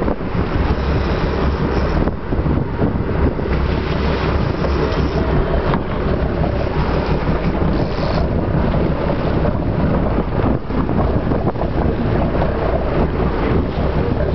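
Steady noise of a boat underway: engine rumble and rushing water, with wind buffeting the microphone.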